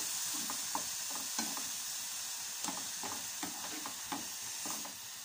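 Grated carrot cooking in ghee and milk in a non-stick kadai, sizzling steadily while a spatula stirs and scrapes through it in uneven strokes.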